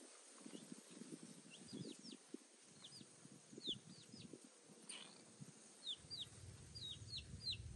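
Faint chickens: many short falling peeps, coming more often toward the end, over soft low clucking.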